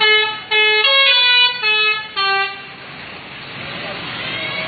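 A bus's telolet musical air horn playing a quick tune of distinct stepped notes for about two and a half seconds, then a noisy wash that grows louder toward the end.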